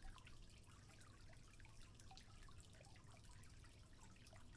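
Faint trickling water, with many small drips and plinks scattered irregularly through it.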